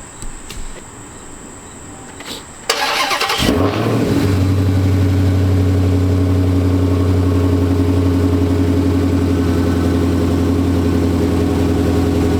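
Supercharged 6.2-litre Hemi V8 of a Dodge Challenger Hellcat cranking and firing up about three seconds in, then settling into a loud, steady idle.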